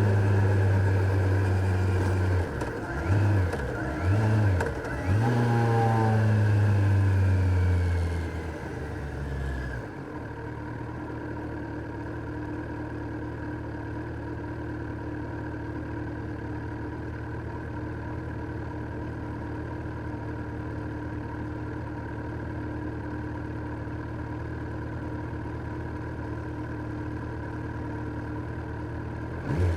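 Kawasaki Z900's inline-four engine running under way, its revs dipping and rising twice, then winding down and settling into a steady idle for the remaining twenty seconds or so. A brief blip of revs comes near the end.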